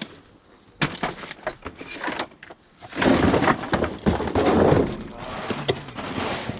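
Scrap metal being handled: a run of sharp clanks and knocks, then from about three seconds in a loud crashing clatter lasting around two seconds.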